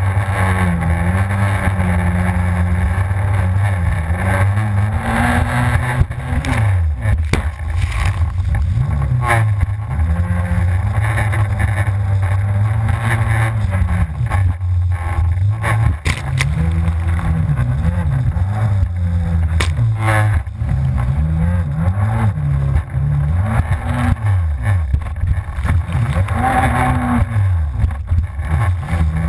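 Yamaha FZS WaveRunner's supercharged four-stroke engine running hard while wave jumping, its revs rising and falling over and over. A few sharp knocks come through among the revving.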